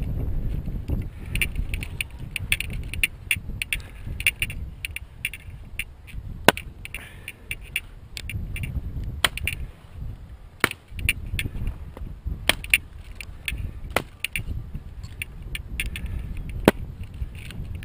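Hazel binders rustling and creaking as they are worked and twisted along the top of a laid hedge, with about five sharp wooden knocks spaced through it, over a low rumble.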